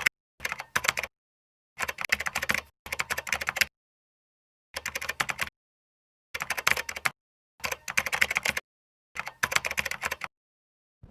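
Computer keyboard typing in about eight short bursts of rapid key clicks, each under a second long, with silent gaps between.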